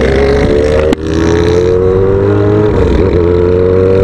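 Yamaha XJ6's inline-four engine, straight-piped through a bare 8-inch pipe with no muffler, accelerating hard with a rising pitch. The pitch drops at upshifts about a second in and again near three seconds, then climbs again.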